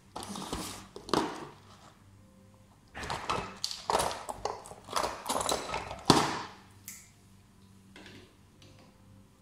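Hand tools clattering and clinking as someone rummages through a plastic toolbox, in two spells of rattling with sharp knocks, the loudest about six seconds in.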